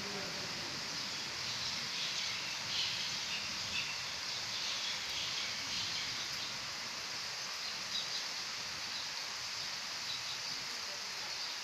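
Steady hiss of rain falling on wet paving and standing water, with faint high chirps now and then.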